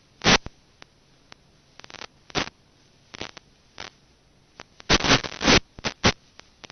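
Irregular bursts of static crackle from the analog 5.8 GHz FPV video link's empty audio channel, with no microphone on the plane; the noise flares as the signal breaks up. Near silence lies between the bursts, and they cluster densest about five seconds in.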